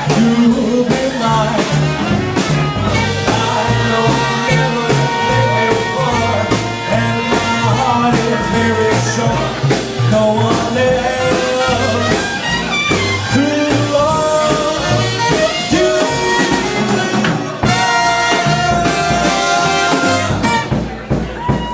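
Jazz band with brass and drum kit playing an upbeat number over a steady stepping bass line.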